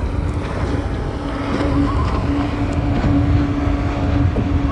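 Motorboat engine running with a steady hum, over a low rumble of wind on the microphone.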